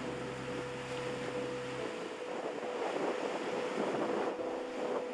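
Sea waves washing in the shallows, with wind on the microphone and a faint steady hum underneath.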